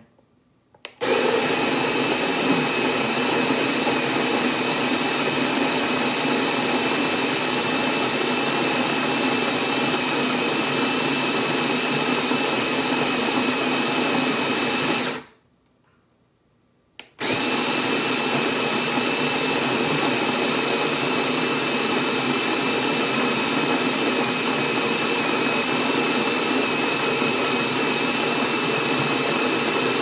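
OXO Brew conical burr coffee grinder grinding coffee beans: a steady motor whir with a thin high tone, in two runs of about fourteen seconds each, with a pause of about two seconds between them.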